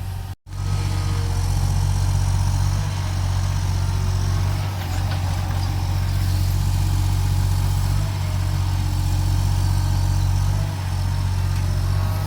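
Engine of a construction vehicle idling steadily with a deep, even hum, after a brief dropout about half a second in.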